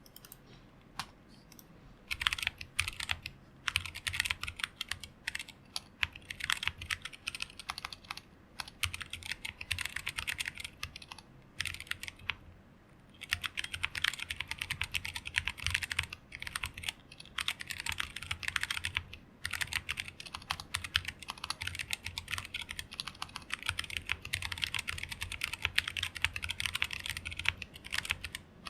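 Typing on a mechanical keyboard with stock, unlubricated Zealios V2 tactile switches (67 g springs) on a plateless 60% hotswap board. A few scattered keystrokes come first, then fast continuous typing with a short pause about halfway through.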